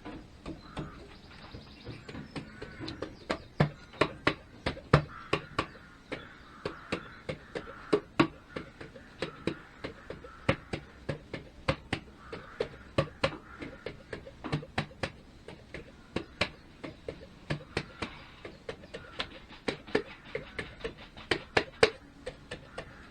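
Irregular light knocks and clicks, at times three or four a second, as the BSA A50's cylinder barrel is worked and tapped down over the pistons and rings.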